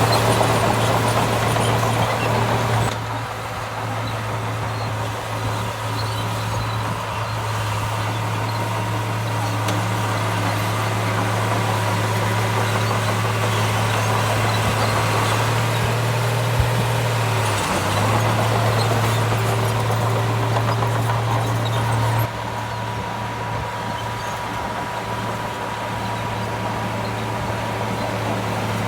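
Heavy diesel earthmoving machine running steadily with a deep, even engine hum that dips briefly once. The sound changes abruptly twice.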